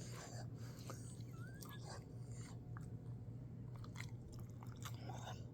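Sleeping Labrador's soft breathing and snuffling, with small wet mouth clicks and smacks, over a steady low hum.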